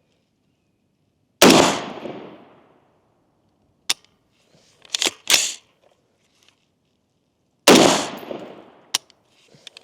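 Two shots from a 20-inch AR-15 SPR rifle, about six seconds apart, each with a long echoing tail. A few sharp metallic clicks come between them. The rifle is still not cycling reliably unsuppressed.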